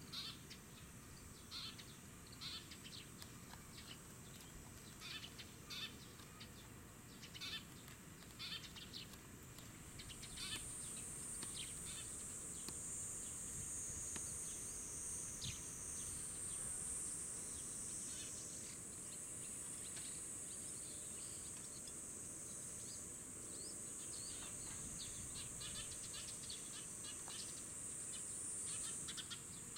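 Eurasian tree sparrow fledgling calling with many short, repeated chirps. A steady high-pitched insect buzz grows louder about a third of the way in.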